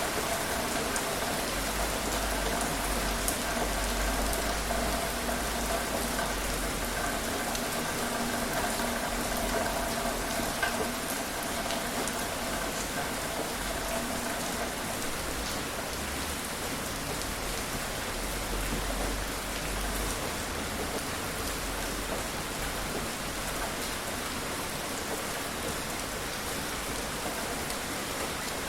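Steady rain falling, with single drops striking now and then as sharp ticks. A faint steady hum lies under it through about the first half.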